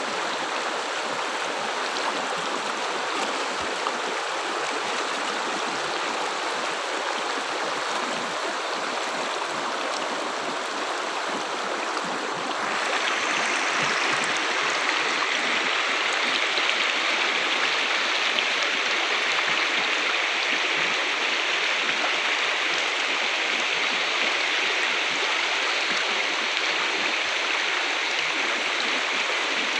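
Shallow rocky river rushing steadily over boulders in small rapids. About twelve seconds in, the sound changes abruptly and becomes a little louder and brighter, then stays steady.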